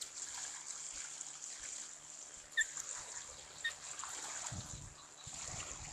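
Steady outdoor hiss with two short, high chirps about two and a half and three and a half seconds in. Low rumbles of wind on the microphone follow near the end.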